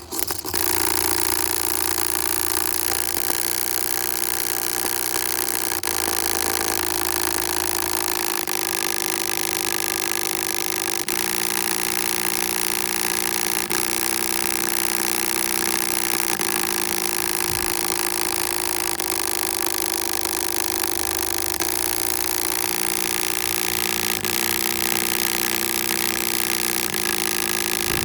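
A machine running loudly and continuously, its pitch shifting in small steps every few seconds.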